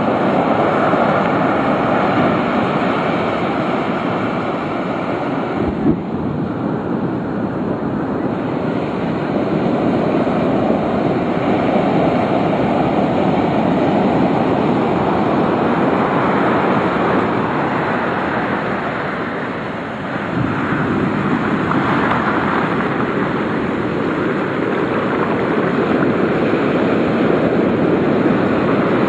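Large ocean waves breaking and washing up a sandy beach: a continuous rush of surf that swells and eases as the waves come in, with one short knock about six seconds in.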